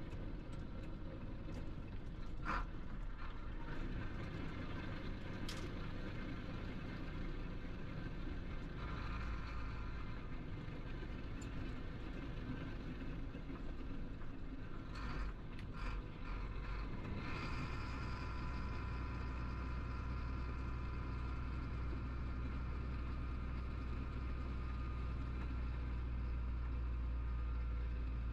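Cab interior of a Chenglong heavy truck under way: steady diesel engine drone and road noise, with a few sharp clicks or knocks in the first half. A little over halfway through, the low engine drone grows stronger and steadier.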